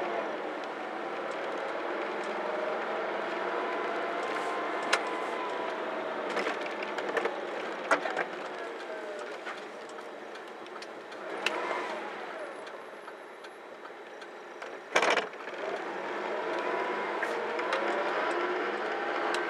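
Road vehicles driving past with engines running, their pitch slowly rising and falling as they go by. Scattered clicks and knocks, with a louder knock about fifteen seconds in.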